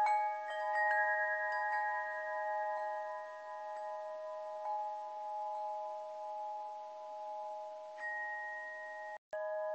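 Layered chime tones ringing in a steady drone, with a few light chime strikes now and then and a new higher tone joining about eight seconds in. The sound cuts out completely for a split second near the end.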